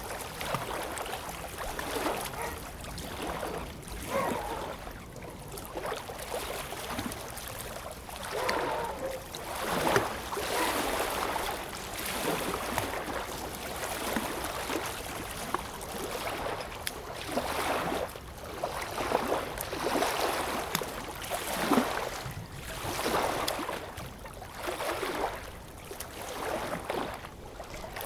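Small lake waves lapping and splashing at the shore in irregular surges every second or two.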